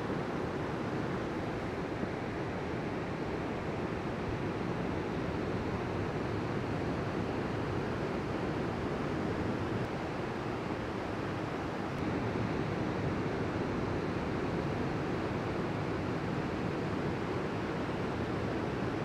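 Ocean surf breaking along a beach: a steady, unbroken wash of waves.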